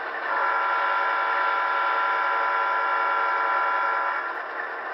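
Diesel-locomotive horn from the Soundtraxx Tsunami sound decoder in an HO-scale Walthers EMD E9A, played through the model's speaker. It sounds one steady chord of several notes for about four seconds, starting a moment in and cutting off near the end, over a steady background hiss.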